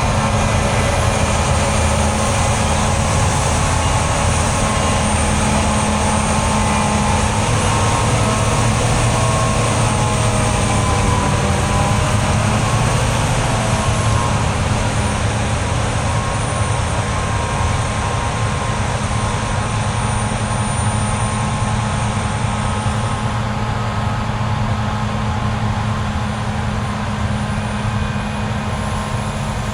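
Heavy diesel harvest machinery running steadily under load with a deep, even engine hum, and a faint higher whine that rises and falls about halfway through.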